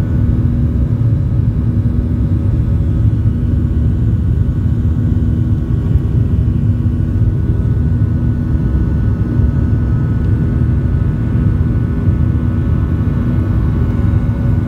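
Boeing 737-800 jet engine noise heard inside the cabin during the climb after takeoff: a steady, loud low rumble with a constant hum, unchanging throughout.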